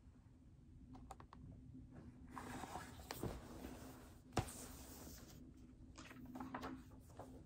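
Faint handling of a large hardcover picture book: paper rustling as it is lowered and a page is turned, with a single sharp tap about four and a half seconds in and more rustling near the end.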